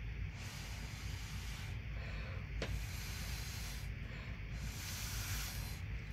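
Three long puffs of breath blown through a drinking straw, each a hissing rush of air, pushing wet poured acrylic paint across a wine glass. A small click comes as the second puff starts.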